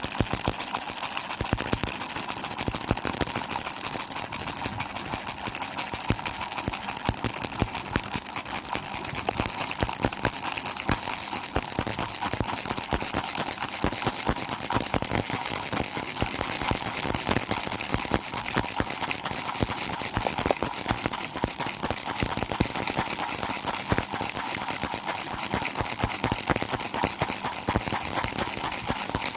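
Baby's toy rattle shaken continuously: a steady, dense stream of rapid rattling clicks.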